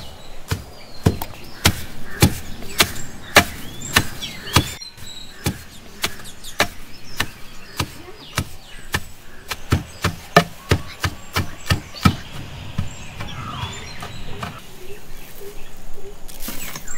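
Heavy wooden pestle dropped into a wooden mortar in a steady rhythm, a little under two strokes a second, pounding finger millet heads. The strokes stop about two-thirds of the way through, leaving birds chirping and a brief rustle near the end as the pounded grain is scooped out.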